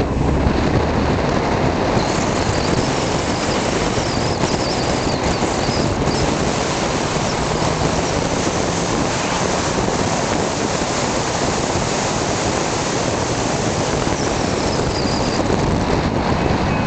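Steady road noise of a car driving, heard from inside the cabin: tyre rumble, wind and engine blending into one even noise with no rise or fall in level.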